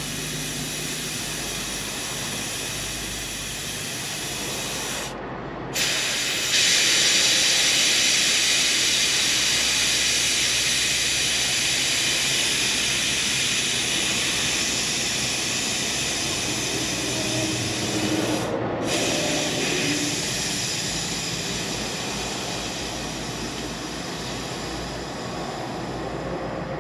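Compressed air hissing steadily out of the truck's air brake system as it is bled down to empty. The hiss breaks off briefly twice and comes back louder after the first break, then slowly fades as the pressure drops.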